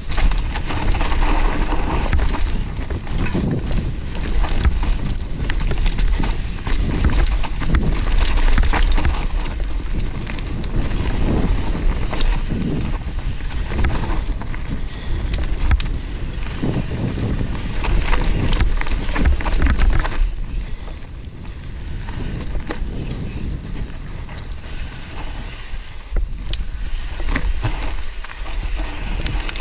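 Mountain bike descending a dirt singletrack: wind buffeting the camera's microphone, with tyres rolling over dirt and loose stones and the bike rattling over bumps. It eases off for a few seconds past the middle.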